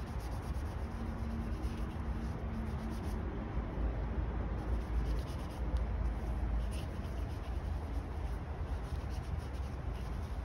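A paintbrush brushing watercolour onto paper in light, irregular scratchy strokes, over a steady low hum.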